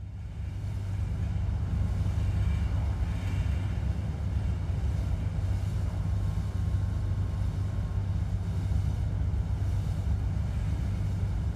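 Sound effect of a cruise ship under way: a steady low engine rumble that fades in at the start.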